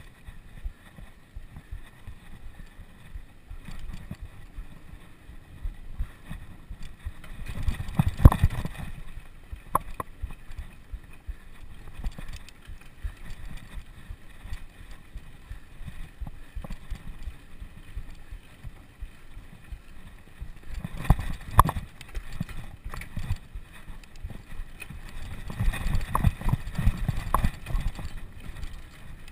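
A bicycle jolting and rattling over rough ground, heard from a camera mounted on the bike or rider: a steady low rumble of small knocks, with heavier jolts about eight seconds in, around twenty-one seconds, and in a cluster near the end.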